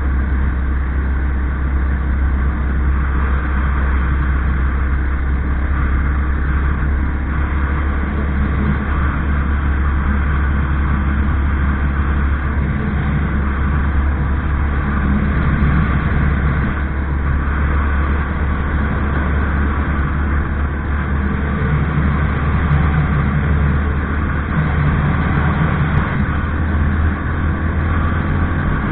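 Vehicle engine running at a steady cruising speed, a constant low drone with wind and road noise over it.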